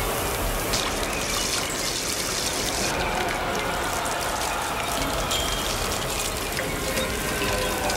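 Liquid gushing and trickling steadily: blood pouring down walls and spreading across a floor.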